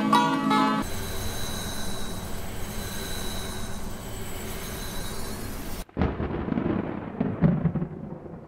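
Soundtrack: plucked-string music stops about a second in and gives way to a dark, hissing ambient drone. Near the end the drone cuts off abruptly, and a deep thunder-like rumble with a few sharp cracks follows, slowly fading.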